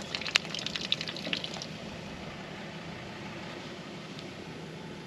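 Grey water draining from a caravan's outlet pipe, a thin stream splashing onto the ground. Sharp drips and splashes stand out in the first second and a half, then the trickle goes on steadily.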